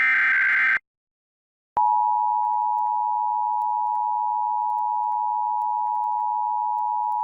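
Emergency Alert System test signal. The last SAME header data burst, a harsh digital screech, cuts off under a second in. After about a second of silence, the steady EAS attention tone starts and holds unbroken.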